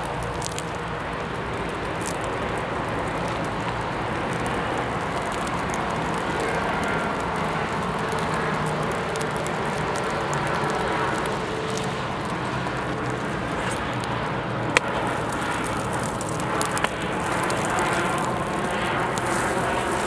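A painted canvas burning: a steady rush of flame with scattered crackles and one sharp pop about fifteen seconds in, getting a little louder near the end as the fire flares up.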